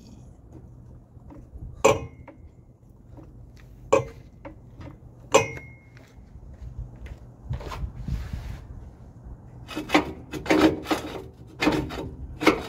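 A steel jack stand being handled and set under a raised Ford F-150: single sharp metal clanks with a brief ring, a second or two apart, then a quicker run of knocks and scrapes near the end.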